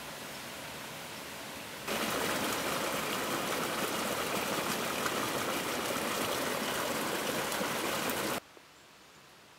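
Shallow forest stream running over stones: a steady rush of water that starts abruptly about two seconds in and cuts off abruptly near the end, with only a soft, even hiss before and a faint one after.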